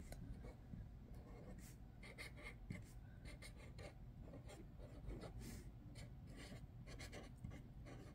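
Black Sharpie marker writing letters on vellum paper: faint, short strokes of the felt tip on the paper.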